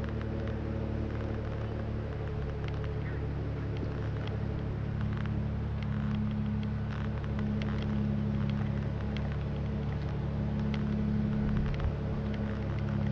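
A steady low machine hum with several held tones, a little stronger in the middle, along with light irregular clicks of footsteps on pavement.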